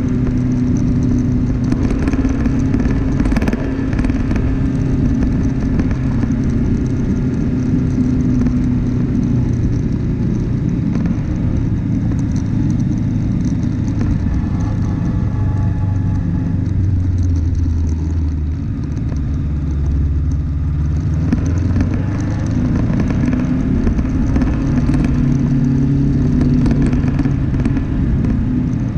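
A vehicle's engine running steadily while driving along a rough dirt track. Its note drops lower for several seconds in the middle and climbs back near the end.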